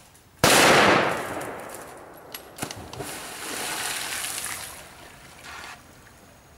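A wild boar plunging into a river and swimming off: a sudden loud impact about half a second in, then a few seconds of splashing water that fades out.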